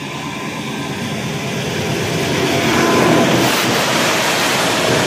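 Diesel locomotive hauling a passenger train, approaching and passing close by, growing louder to a peak about three seconds in. Then the rumble of its coaches rolling past on the rails.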